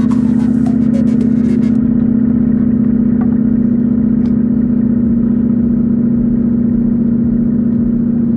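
Two-stroke chainsaw running steadily at high speed, with crackling clicks for the first couple of seconds.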